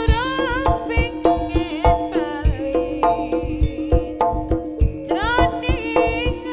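Live jaranan gamelan accompaniment: sharp, frequent kendang drum strokes over a steady low held tone, with a high melody line that wavers and slides in pitch.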